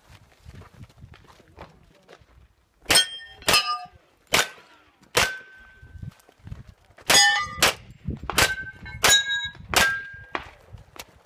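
Glock 34 9 mm pistol firing about ten shots at an uneven pace, starting about three seconds in. Several shots are followed by the ringing of struck steel targets.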